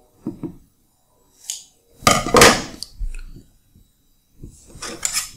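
Scissors snipping through vinyl electrical tape, followed by handling sounds as the scissors are set down on a table and the tape is worked by hand, with one louder, brief scraping rustle about two seconds in and another near the end.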